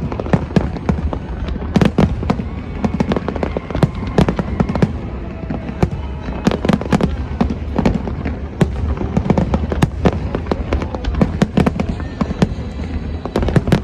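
Fireworks display: a dense, continuous barrage of sharp bangs and crackles, several per second and irregular, over a steady low rumble.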